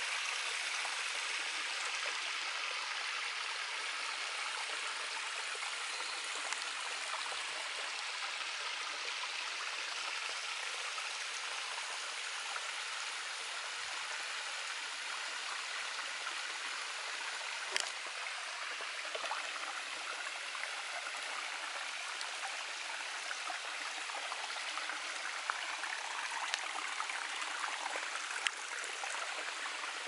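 Shallow rocky stream running over stones: a steady rush and trickle of water, with a few faint clicks and one sharper click a little past halfway.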